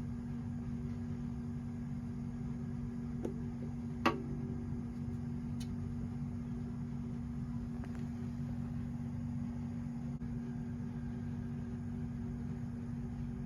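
A steady low background hum, with a single short twang about four seconds in: a ukulele string plucked by a kitten's paw. Faint ticks come just before and after it.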